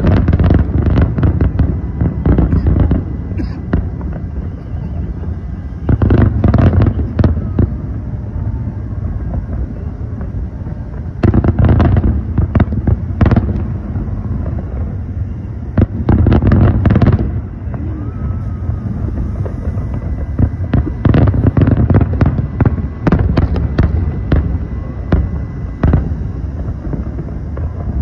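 Large aerial fireworks display: a dense stream of shell bursts and crackle over a continuous low rumble. Heavier volleys of bangs come every few seconds.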